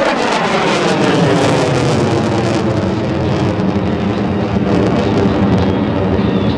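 F-16 fighter jet's engine heard from the ground during a demonstration pass: loud, continuous jet noise whose pitch sweeps downward over the first few seconds and then holds steady.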